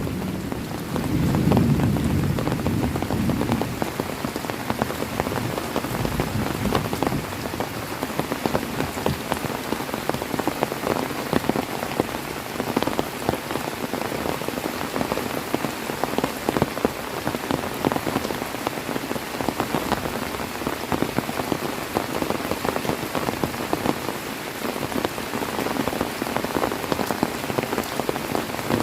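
Heavy rain falling steadily, a dense patter of drops hitting a surface. A low rumble of thunder dies away in the first few seconds.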